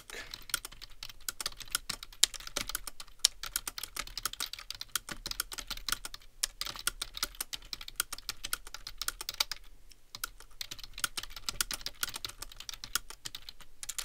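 Fast, continuous typing on a computer keyboard, many key clicks a second at about 89 words per minute, with a couple of brief pauses.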